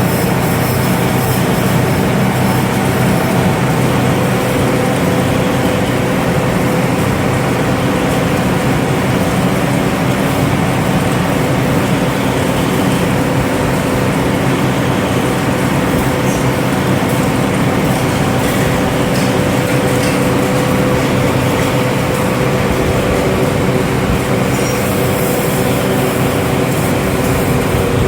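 Factory machinery running: a loud, steady mechanical drone with a constant hum and no letup.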